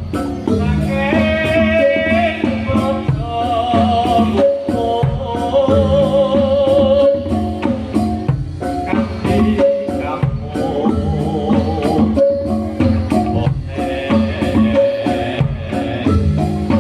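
Live Reog Bantul dance music: steady drumming and struck percussion under a wavering, vibrato-laden melody line.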